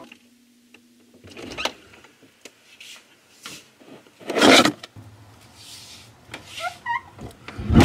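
Refrigerator door and plastic food containers being handled: scattered clicks and knocks, a loud burst of rushing noise about halfway through, and a few short squeaks near the end.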